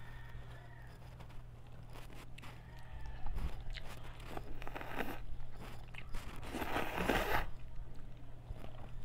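Close-miked eating sounds of instant noodles taken up with chopsticks: wet mouth clicks and chewing. There are two louder, noisier stretches, about halfway through and around seven seconds in, as strands are drawn into the mouth.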